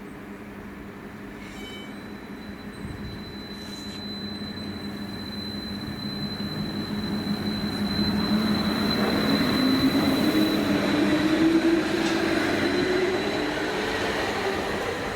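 A rail vehicle running past, getting louder to a peak about ten seconds in. A motor whine rises in pitch over the second half, and a thin high-pitched tone holds steady through most of it.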